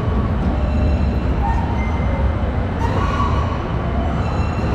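Steady low rumble of a large indoor play hall's background din, with faint distant voices and short tones coming and going.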